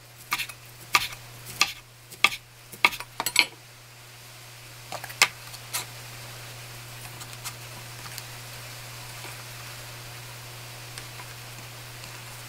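Chef's knife slicing through a gimbap roll and knocking on a wooden cutting board: about ten sharp knocks in the first three and a half seconds. A few more knocks follow as the knife is set down, then soft handling sounds over a steady low hum.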